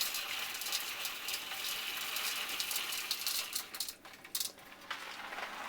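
Dishwasher salt pouring through a funnel into a Miele dishwasher's salt reservoir: a steady grainy hiss with small rattles, which thins out about four seconds in to a few scattered trickles.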